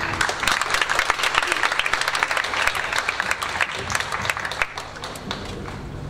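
Audience applauding. The clapping starts loud right as the music stops and dies down after about five seconds.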